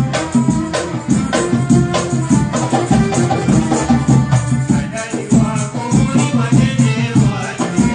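Twarab (Comorian taarab) band playing live: electronic keyboard over hand drums and rattling percussion keeping a steady beat.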